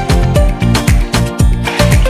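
Upbeat background music with a steady dance beat, about three drum hits a second.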